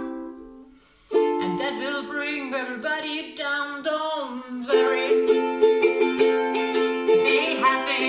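Soprano ukulele strummed with a woman singing along. The first chord dies away to a brief near-silent gap about a second in, then the strumming and singing start again.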